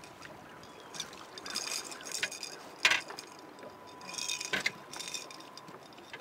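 Hooked catfish thrashing and splashing at the water's surface beside a boat as it is fought in, in two bursts of splashing, with a few sharp knocks, the loudest about three seconds in.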